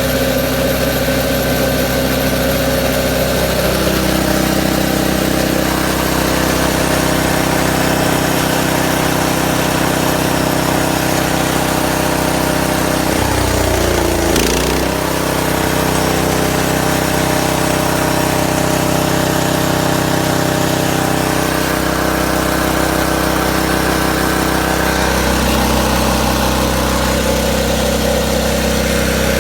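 Mini wood chipper-shredder's 7 HP gas engine running steadily. Its note shifts a few times, with a brief rough stretch about halfway through.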